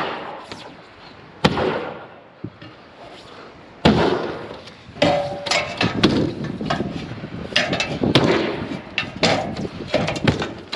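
Sheet-metal roofing panels banging and clattering: a few sharp knocks at first, then a rapid run of bangs and rattles over the second half, one with a brief metallic ring.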